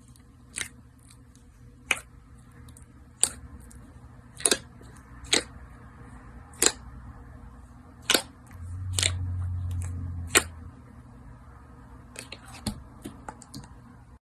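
Slime being pressed and worked, giving sharp pops or clicks at irregular intervals, roughly one a second, over a low steady hum that grows louder for about two seconds midway.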